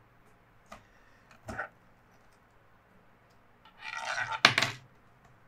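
Handling noise on a wooden turntable: a couple of faint clicks, then a short scraping rustle and a sharp click about four and a half seconds in.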